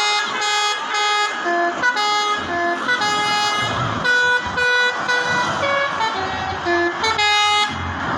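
Telolet bus horn, a multi-tone musical air horn, playing a tune of short held notes at about two a second that step up and down in pitch.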